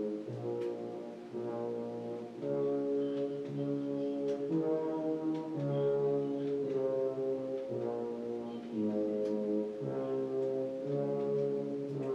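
Looping disc-menu background music: slow, sustained low chords that change about once a second.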